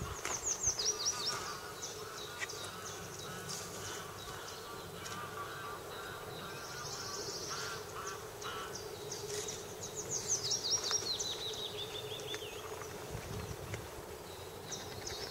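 Songbirds singing in woodland, with runs of quick falling chirps, loudest about a second in and again about ten seconds in, over a faint steady drone from a distant diesel locomotive approaching.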